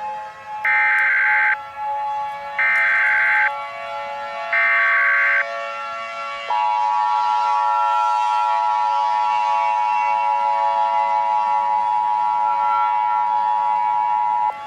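Emergency Alert System tones over a siren: three one-second SAME header data bursts, then the steady two-tone EAS attention signal from about halfway in to the end.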